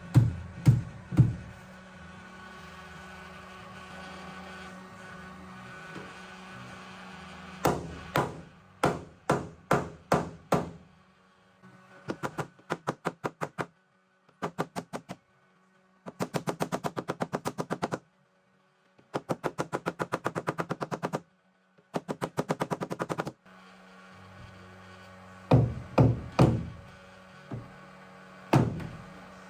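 Paintless dent repair work on a car body panel: groups of sharp taps. In the middle come several runs of rapid, evenly spaced clicking, broken by gaps of silence.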